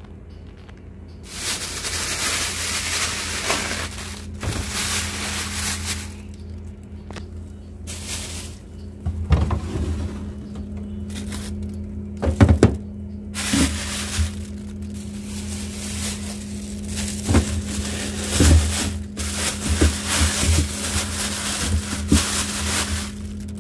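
Plastic grocery bags rustling and plastic food containers knocking against refrigerator shelves as vegetables are packed into a fridge, with several sharp knocks, over a steady low hum.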